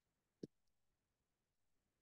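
Near silence, with one soft tap about half a second in and a fainter tick just after, from a stylus on a drawing tablet during handwriting.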